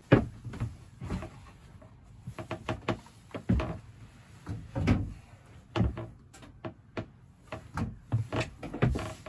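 Irregular wooden knocks, thuds and bumps in a small yacht's cabin as the companionway steps and engine box panels are handled and lifted away to open up the engine bay.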